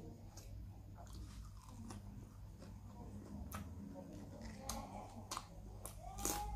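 A man chewing food close to the microphone, with scattered sharp clicks and mouth smacks about once a second over a steady low hum.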